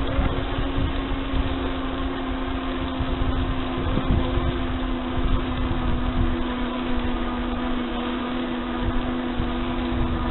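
Riding noise picked up by a bicycle-mounted camera on rough asphalt: a low, uneven rumble of wind and road buzz, over a steady hum that holds one pitch.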